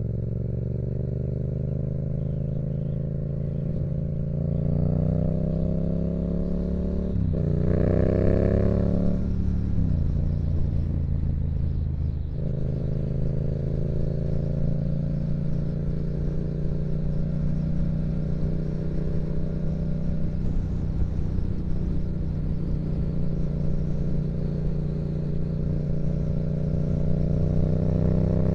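Yamaha MT-07's parallel-twin engine through a Yoshimura exhaust, under way. It rises in revs with quick gear changes and a roll-off in the first half, then holds steady cruising revs.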